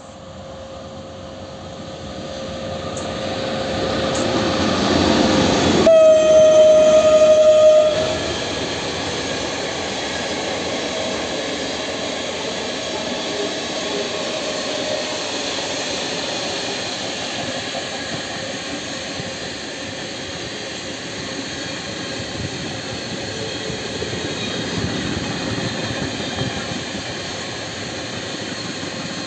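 PKP Cargo ET42 twin-section electric locomotive hauling a long train of coal wagons past. It grows louder as it approaches and sounds its horn with one steady note for about two seconds, some six seconds in. Then the wagons roll by with a steady rumble.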